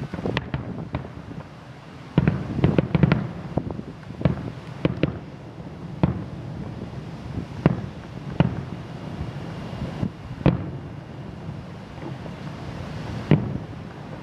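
Aerial fireworks shells bursting far away: a quick cluster of booms about two seconds in, then single booms every second or two.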